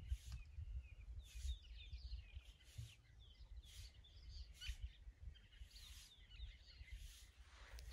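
Faint, scattered bird chirps and tweets over a low, steady background rumble.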